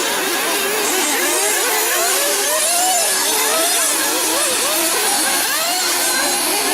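Several 1/8-scale nitro buggy engines racing together, their high-pitched buzz overlapping and constantly rising and falling as the cars accelerate and brake around the track.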